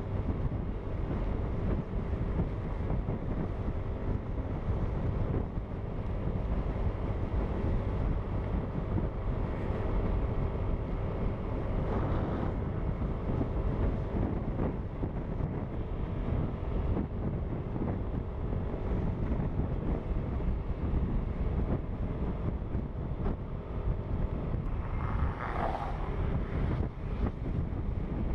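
Heavy wind buffeting on the microphone while riding a Yamaha Aerox scooter, with the engine's steady drone underneath. A short higher sound stands out near the end.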